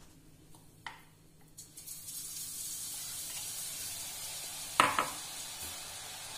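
Boondi batter dripping through a perforated ladle into hot oil, the oil sizzling steadily from about two seconds in. A single sharp metallic clank comes near the end.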